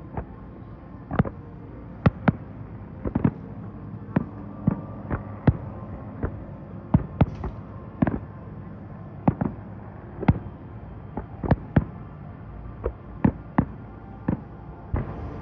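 Aerial fireworks going off: a string of sharp bangs at irregular intervals, about one or two a second, over a steady low hum.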